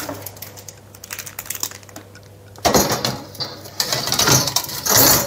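Light clicks, then three louder metal clatters as a baking tray of lasagna is put into an oven, over a low steady hum in the first half.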